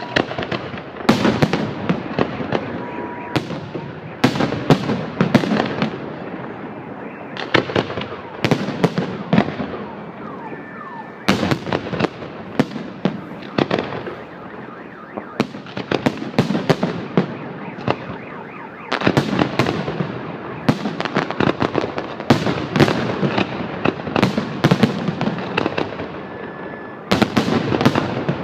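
Fireworks display: salvos of sharp shell bursts in quick succession, clustered every few seconds, with crackling in between.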